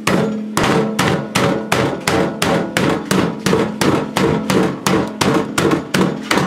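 A small cast iron sandwich skillet used as a meat mallet, whacking a raw chicken breast through a plastic freezer bag in a rapid, steady run of blows, about three or four a second, flattening it into a thin cutlet.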